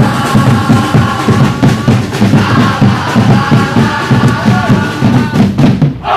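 A football supporters' chant song: a group of voices singing over a quick, steady drumbeat. The beat breaks off near the end.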